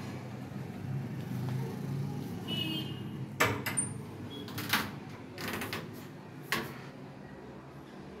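A door being handled: several sharp clicks and knocks from about three to six and a half seconds in, over a low steady hum.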